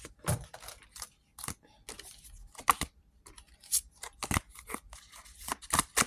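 A deck of oracle cards being shuffled and handled by hand: irregular sharp papery snaps and slaps.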